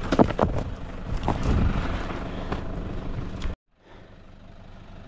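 Knocks and scraping as a plastic Maxtrax recovery board is handled and laid on stony dirt, over a low rumble with a vehicle engine running. About three and a half seconds in the sound cuts off suddenly and gives way to a quieter steady rumble.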